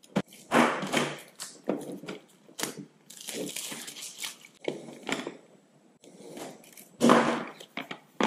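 Clear plastic shrink wrap being torn and peeled off a small cardboard product box by hand, crinkling and crackling in irregular bursts, with the loudest tearing just after the start and again about seven seconds in.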